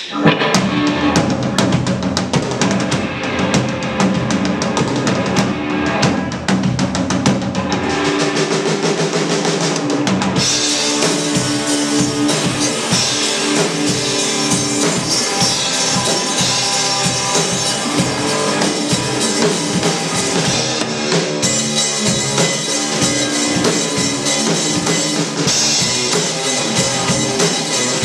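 Rock band playing live: two electric guitars through amplifiers and a drum kit, with no singing. About ten seconds in, cymbals come in and the whole band plays on at full volume.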